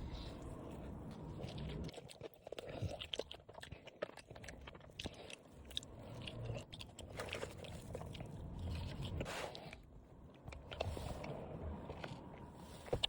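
A person biting and chewing crunchy food close to the microphone, with many short crunches and clicks throughout.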